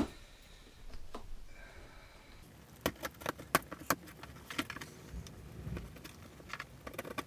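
A key slitting the packing tape on a cardboard box: one sharp click at the start, then from about two and a half seconds in, a run of quick scratching and tearing strokes.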